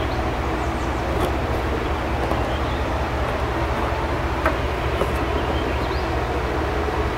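Natural gas compressor station blowdown heard from a little over two miles away: a steady rushing noise of gas venting from the station's pipework, which sounds like a jet fighter tearing through the sky or a power washer used very close up.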